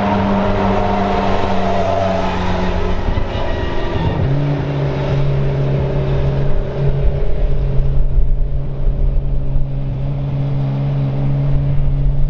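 McLaren 720S GT3 EVO's twin-turbo V8 running at low revs as the car rolls slowly. The pitch drops about four seconds in and settles into a steady idle with an uneven, pulsing beat.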